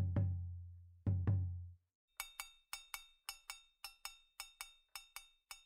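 Background music: two pairs of deep, ringing bass notes, then from about two seconds in a quick, even pattern of short, high percussive clicks at about four a second.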